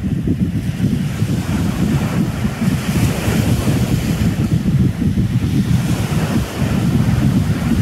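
Gulf surf breaking and washing up a sand beach, with wind buffeting the microphone in a loud, uneven rumble. The hiss of the wash swells about three seconds in.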